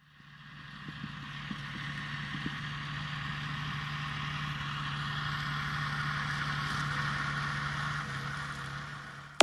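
Claas Arion 620 tractor's six-cylinder diesel engine running steadily under load while pulling a plough through maize stubble, a low drone with a hiss above it. The sound fades in over the first couple of seconds and eases off near the end.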